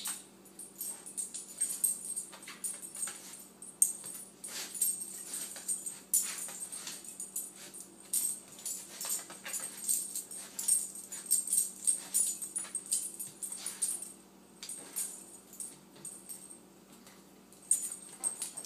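A dog pawing and nosing at a kitchen floor as it tries to bury a bone: irregular scrapes, scuffs and clicks, some in quick runs, with short pauses between.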